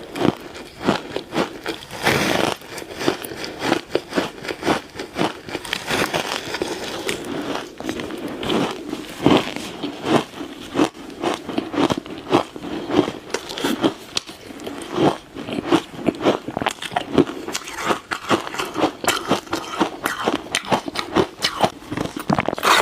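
Ice being bitten and chewed, a continuous run of crisp, irregular cracks and crunches, several a second.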